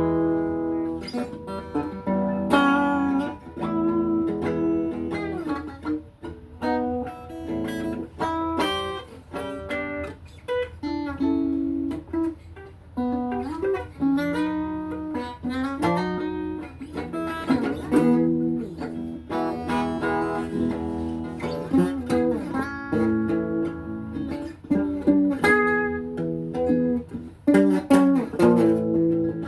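Guitar playing a slow melody of plucked single notes and chords, some notes sliding up or down in pitch.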